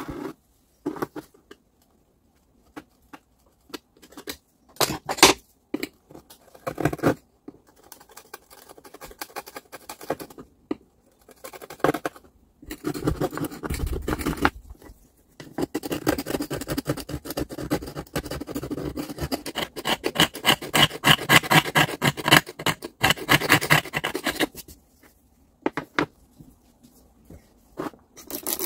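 Grinder parts being scraped and scrubbed by hand. It starts with scattered clicks and handling knocks, then about halfway in there are roughly ten seconds of rapid back-and-forth scrubbing strokes before it settles back to light handling.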